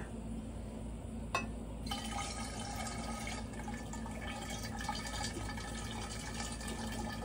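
Clear solution being decanted from a glass beaker into a large side-arm glass flask: a light click about a second and a half in, then a steady pouring trickle from about two seconds in. The liquid is being poured off the settled silver chloride precipitate.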